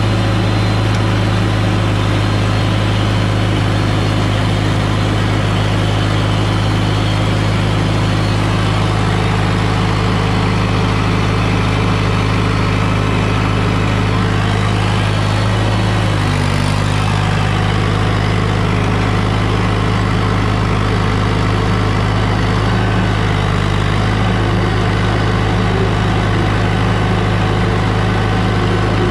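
John Deere 450C crawler dozer's diesel engine running steadily at about 1700 rpm while its transmission clutch pressure is being tested. The engine note dips briefly about halfway through and again some seven seconds later.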